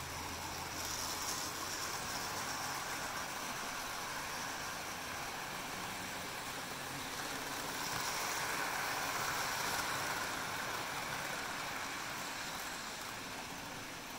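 Model trains running on the layout: a steady whirr of motors and wheels on the rails that swells as a black 4-6-4 Hudson steam locomotive passes, about eight to ten seconds in.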